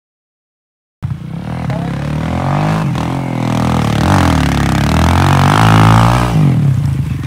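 About a second of silence, then a Kawasaki KLX140L dirt bike's single-cylinder four-stroke engine revving up and down repeatedly as the bike slides through snow. The revs are highest just before the end, then drop.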